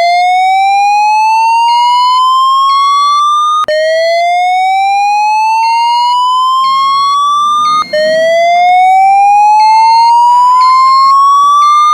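Fire alarm voice evacuation speakers sounding the slow whoop evacuation tone. It is a loud rising sweep that climbs for about four seconds, drops back and starts again, three times.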